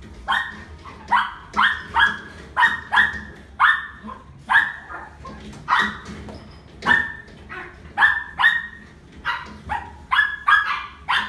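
Puppy barking in a run of about twenty short, high yaps, one or two a second.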